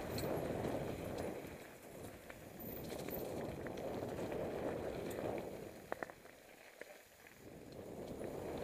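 Mountain bike rolling down a dirt forest singletrack: a rushing noise of tyres on the trail that swells and fades, with a few sharp rattling clicks about six seconds in.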